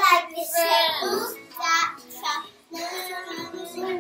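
A group of children singing together at full voice, in short phrases with brief breaks.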